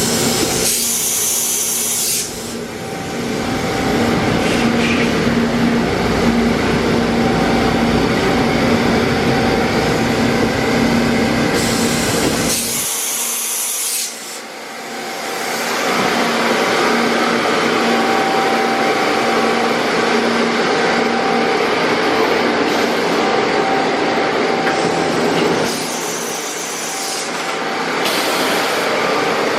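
Steady machinery noise with a hum, broken three times by a short high hiss.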